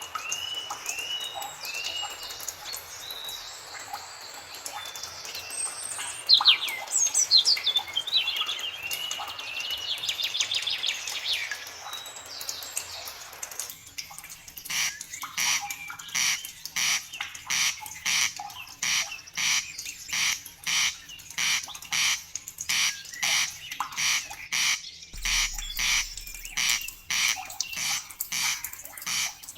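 Several forest birds singing, with slurred whistled notes and quick trills. About halfway through, the background drops away abruptly and a short, noisy call repeats steadily about every two-thirds of a second.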